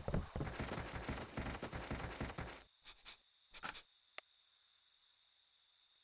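Quick running footsteps on soft ground that fade out after about two and a half seconds, with a few more scattered steps later, over crickets chirping steadily throughout.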